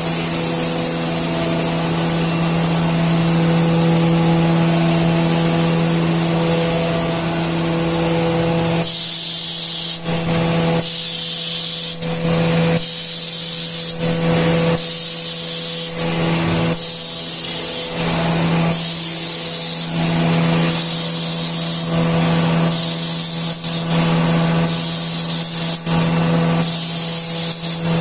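Automatic facial-tissue packing machinery running with a steady hum. From about nine seconds in, it hisses in bursts roughly once a second, like pneumatic cylinders venting air as the machine cycles.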